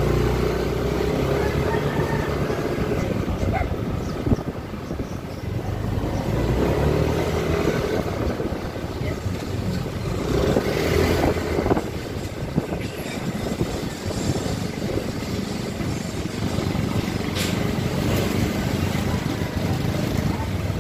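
Yamaha NMAX scooter's single-cylinder engine running at low road speed, its level swelling and easing off as the throttle opens and closes. A single sharp knock about four seconds in.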